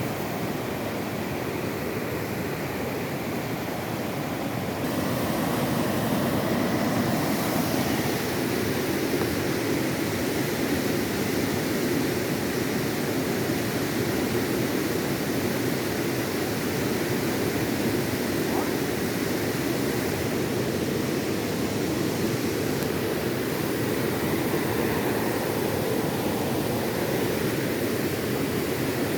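Steady rushing of a waterfall and its river over rocks, getting a little louder about five seconds in.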